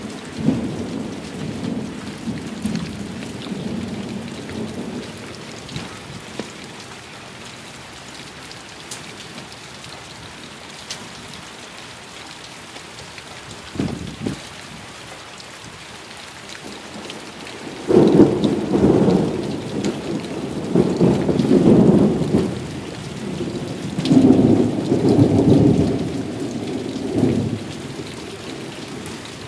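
Thunderstorm: steady rain falling, with thunder. A rumble fades over the first few seconds, a short clap comes about fourteen seconds in, and from about eighteen seconds a long, loud roll of thunder comes in several waves before easing off near the end.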